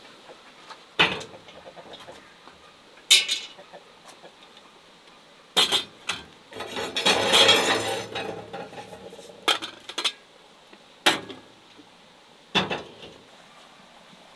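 Cast-iron cauldron and firewood knocking against the iron top of a wood-burning stove: about seven sharp clanks, with a longer scraping shuffle about halfway through.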